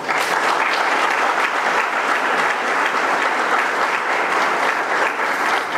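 Audience applauding: many hands clapping together in steady applause that starts suddenly.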